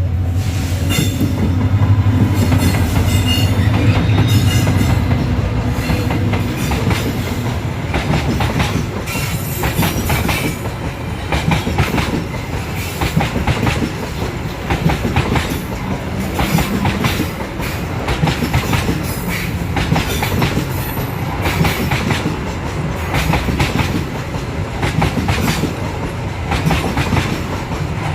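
Coal freight train rolling past: the diesel locomotive's engine drones low for the first several seconds, then a long, steady clickety-clack of the wagons' wheels over the rail joints.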